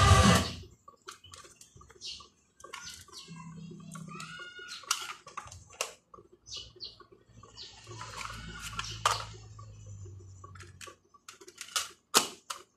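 Music from the cassette player cuts off. Then plastic cassette cases click and knock as they are handled on a table, with a few faint chirps. Near the end come two sharp clicks as the Walkman's buttons are pressed.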